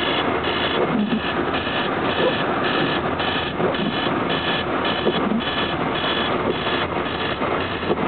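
An electronic alarm beeping steadily about twice a second, each beep a high multi-tone chirp, over the steady noise of a car driving through snow.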